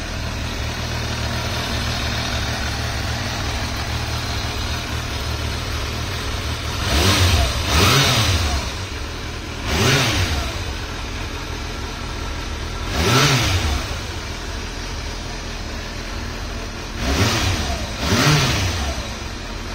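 2001 Kawasaki ZRX1200S inline-four idling steadily, blipped six times with the throttle. Each rev rises and falls back to idle within about a second: two close together, one a couple of seconds later, one in the middle and two near the end.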